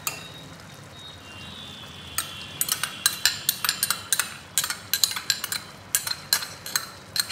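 A steel ladle scraping and tapping whipped yogurt out of a small bowl into a pot, heard as a quick run of sharp clicks and scrapes starting about two seconds in. Under it, the mutton sizzles faintly as it fries in the pot.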